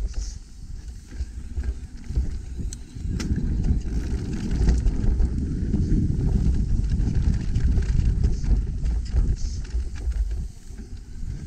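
Wind buffeting a camera microphone while a Trek Rail electric mountain bike rides over rough trail, a heavy uneven rumble with a couple of sharp clicks about three seconds in. The rumble eases briefly about a second in and again near the end.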